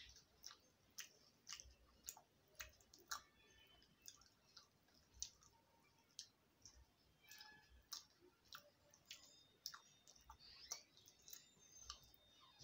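Faint, irregular wet clicks and smacks of a person chewing and eating soft rice khichdi by hand, a few a second with gaps.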